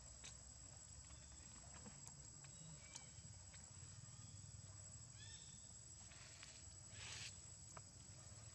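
Quiet forest ambience: a steady high-pitched insect whine, a few faint chirps about halfway through, and a short rustle about seven seconds in.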